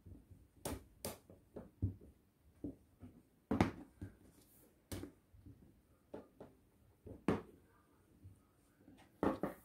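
Plastic rolling pin working sugar paste on a cutting mat: a string of irregular knocks and taps as the pin is rolled, lifted and set back down.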